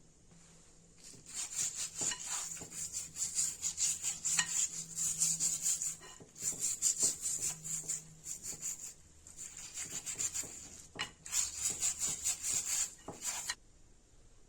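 Taro being scraped by hand in quick, rhythmic strokes, several a second, with a few brief pauses.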